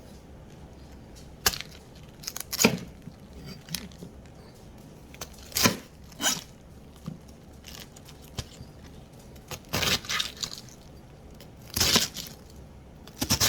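Knife cutting through a head of cabbage: about ten separate crunching, tearing strokes at irregular intervals, some in quick pairs.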